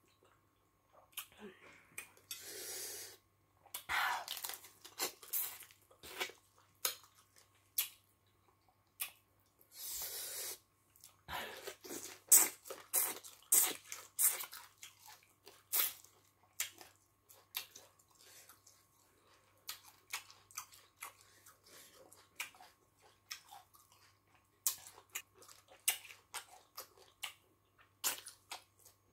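Close-up eating sounds of fufu and soup eaten by hand: wet chewing, lip smacks and finger sucking in many short clicks, with a couple of longer slurping sucks about 3 and 10 seconds in.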